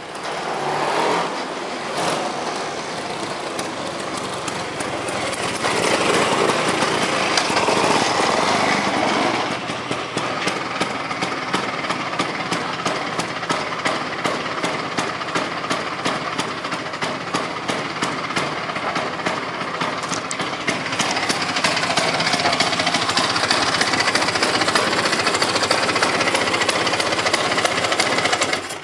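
Vespa 150 Sprint's single-cylinder two-stroke engine running with a rapid, rattly pulse, getting louder for a few seconds twice.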